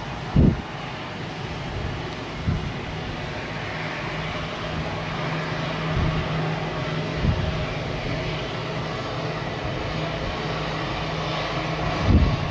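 Airbus A320-214 jet engines (CFM56-5B) running at low thrust as the airliner taxis on the runway: a steady rushing hum that slowly grows louder. Two low thumps come about half a second and two and a half seconds in.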